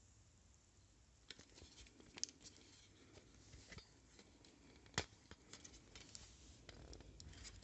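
Faint, irregular clicks, taps and light scraping of a small metal hand tool being handled at a workbench, with a sharper click about five seconds in.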